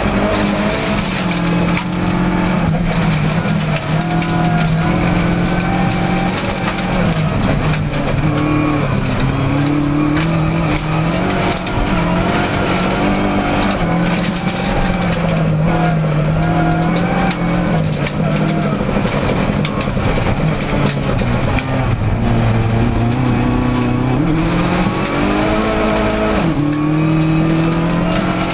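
Opel rally car's engine heard from inside the cabin at racing speed on a gravel stage, its pitch climbing and dropping again and again with the throttle and gear changes, over a constant hiss of tyres and gravel.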